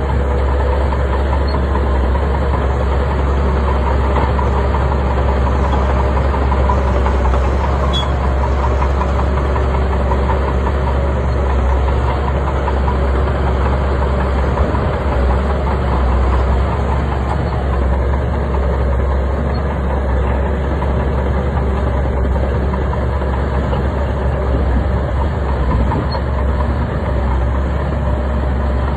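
Bulldozer's heavy diesel engine running steadily while working.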